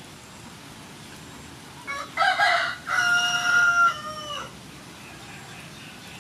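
A rooster crows once, about two seconds in: a short rough opening, a long held note, then a falling tail.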